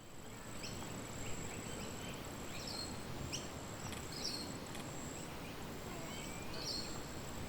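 Outdoor nature ambience: short bird chirps about once a second, over a steady thin high-pitched tone and a low, even rushing noise.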